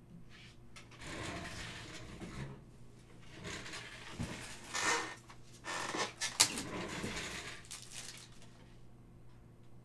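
Rustling and handling noises with a few light knocks, and one sharp click about six and a half seconds in: plastic card holders being fetched and handled.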